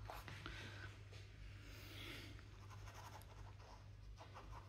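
Faint scratchy brushing of a paintbrush laying acrylic paint onto stretched canvas, over a low steady hum.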